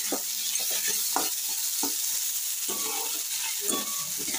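Chopped vegetables sizzling in hot oil in a kadai while a metal spatula stirs and tosses them. A steady frying hiss runs under several short scrapes and knocks of the spatula against the pan.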